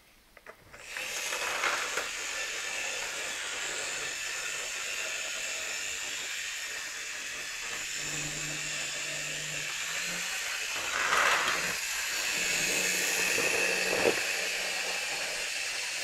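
Model train locomotive running along its track: the steady hissing whir of its small electric motor and wheels starts about a second in, with a low hum coming and going in the second half.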